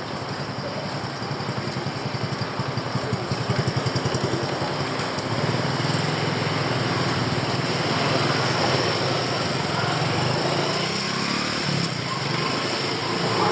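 A vehicle engine running close by in street traffic, a low pulsing hum that grows louder over the first few seconds and then holds steady.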